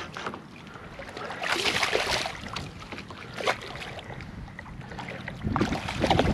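Hooked redfish thrashing and splashing at the water's surface beside a kayak, in several bursts of splashing while the fish fights the line.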